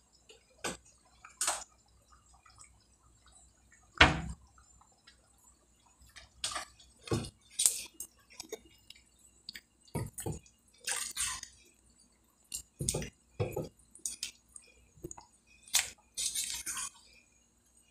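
Thick tomato sauce with chicken simmering in a pot, giving scattered wet pops and drips, with the loudest pop about four seconds in. From the middle onward a spoon stirs through the sauce with wet squelches and light scrapes against the pot.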